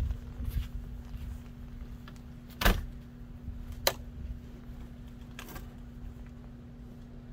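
An old vehicle's steel door being worked open: a heavy clunk a little under three seconds in, a sharp metal click about a second later and a fainter click soon after, over a steady low hum.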